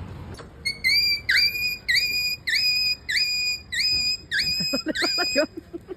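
A series of about ten shrill, whistle-like notes, about two a second, each dipping and then holding its pitch, followed near the end by a run of quicker, lower notes.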